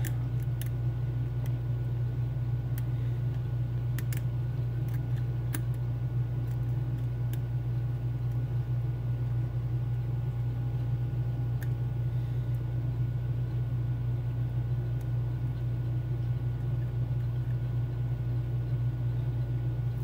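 A steady low hum throughout, with a few faint, scattered ticks from a lock pick working the pins inside a Mul-T-Lock Junior cylinder.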